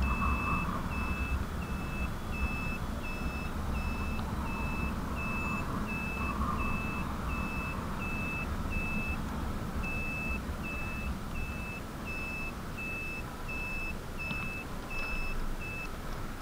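Electric motorcycle's turn-signal beeper: a single high beep repeating about one and a half times a second, pausing briefly around nine seconds in and stopping near the end. Beneath it runs steady wind and road rumble.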